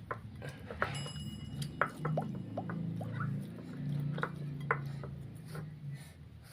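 Hands squeezing and rubbing fresh karuk leaves in water in a bowl, giving scattered small squeaks, clicks and wet patter over a low background hum.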